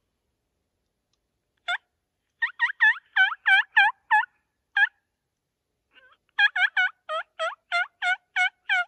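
Turkey hen yelps made on a diaphragm mouth call, used to call in gobbling toms. There are two runs of about ten short, sharp yelps, roughly three a second, with a pause of under two seconds between them.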